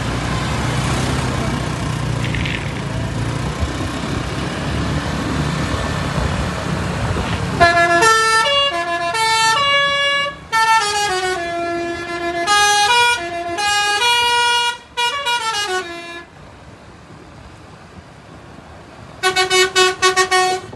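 A bus's engine running, then a multi-tone telolet (basuri) horn plays a tune of stepped notes going up and down for about eight seconds. Near the end the horn sounds a fast string of short toots.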